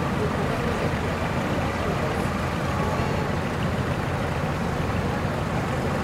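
Engine of a decorated light-duty truck running at low speed as it creeps forward, a steady rumble.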